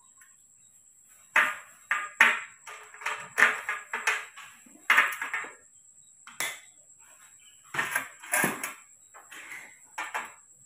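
Irregular knocks, clicks and scrapes of a spoon, a plastic tub and a plastic cup being handled on a metal tray while powdered milk is mixed, starting about a second in.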